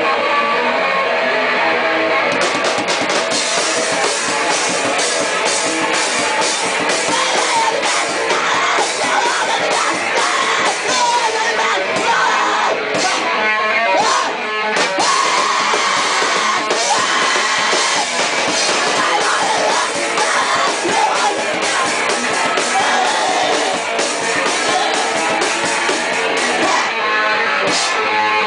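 Rock band playing loud, with drums and guitar.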